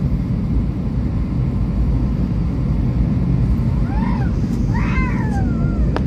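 Airliner cabin noise during descent: the steady, deep rumble of the jet engines and airflow heard from a window seat. A voice sounds faintly over it about four to five seconds in.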